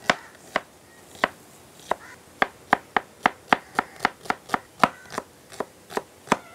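Kitchen knife chopping onions on a wooden cutting board: sharp knocks, spaced out at first, then a steady run of about three to four a second.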